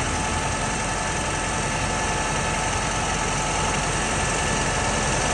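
Ford 7610 tractor's four-cylinder diesel engine idling steadily.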